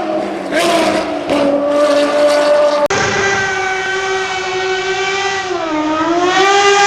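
Racing car engine running at high revs, its pitch stepping as it moves between gears. About three seconds in it cuts abruptly to another high-revving race engine that holds a steady pitch, dips and climbs again near the end.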